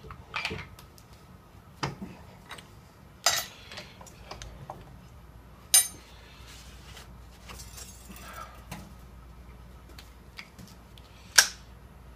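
Irregular metallic clinks and knocks of a lathe's tool post being squared up and its wrench lifted off the tool post nut, with two sharp, louder metal clicks, one near the middle and one near the end.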